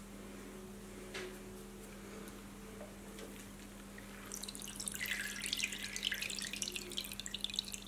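Water draining out of a stainless mesh colander of soaked chicken wings as it is lifted from a pot of water. The water runs and drips back into the steel pot as a dense run of small splashes, starting about four seconds in.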